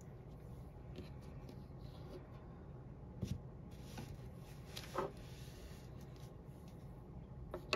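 Faint taps and clicks of small nail-art tools being handled, two slightly louder ones about three and five seconds in, over a low steady hum.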